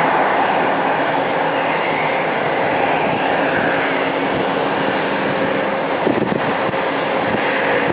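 Jet airliner engines running at low power: a steady rushing noise with a faint low hum underneath.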